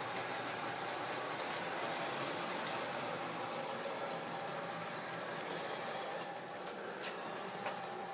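Tri-ang model train running around the layout: a steady whirring rumble of the small motor and the wheels on the track, with a few sharp clicks near the end.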